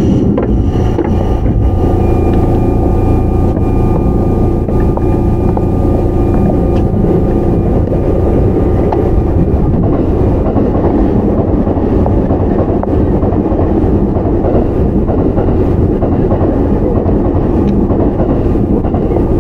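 Sotetsu 9000-series electric train, with Hitachi IGBT VVVF control and right-angle cardan drive, running at a steady pace, heard from inside car 9215. There is a steady rumble with a constant whine and a few faint clicks.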